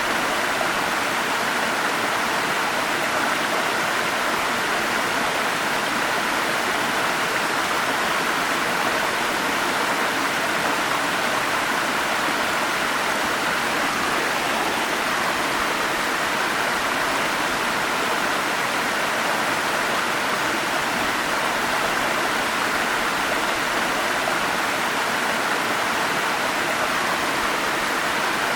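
Forest stream flowing, a steady, unbroken rush of water.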